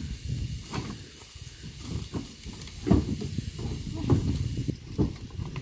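Wooden firewood logs knocking and clunking against each other and the metal of a pickup truck's bed as they are handled and stacked, in irregular knocks, the loudest about three seconds in.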